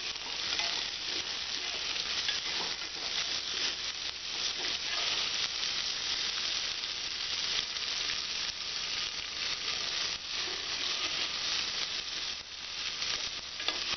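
Chopped onions frying in hot oil in an aluminium pressure cooker: a steady, dense sizzle, with a steel ladle stirring and turning them now and then.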